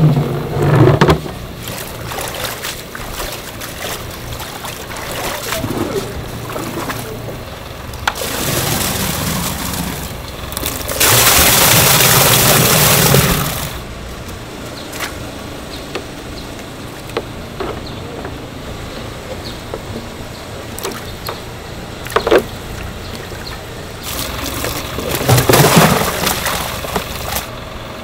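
Water sloshing and splashing in the aerated live-fish tanks on a fish delivery truck as fish are netted out with a long-handled scoop net. A loud rushing noise lasts about two and a half seconds near the middle.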